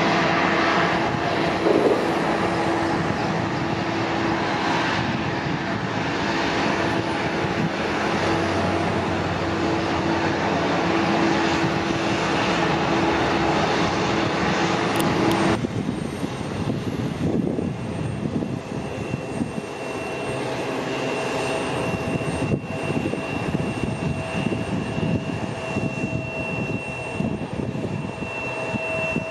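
Bombardier CRJ900's General Electric CF34 jet engines running at taxi power: a steady rushing noise with a hum. About halfway through the sound changes abruptly to a nearer jet whine with steady high-pitched tones.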